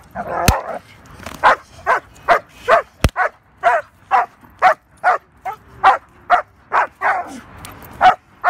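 Young female German Shepherd barking rapidly and steadily, about two to three barks a second, in protection-training agitation at a decoy. Two sharp cracks stand out, about half a second in and about three seconds in.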